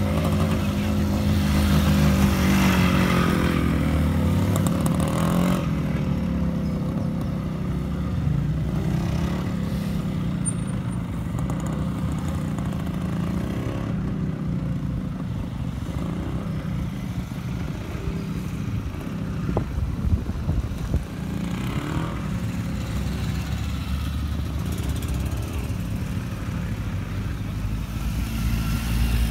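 Motorcycle engines running at low speed through tight cone turns, with the throttle opening and closing. Over the first few seconds one engine's pitch falls as it slows, then a steady low engine rumble carries on with small rises in revs and a few brief clicks.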